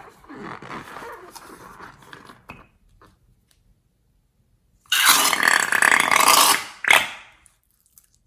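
Burp-like sputtering of air being squeezed out, with gliding pitch, for a couple of seconds. After a short pause comes a much louder, noisy rush of escaping air with a bending squeal lasting nearly two seconds, then one short burst.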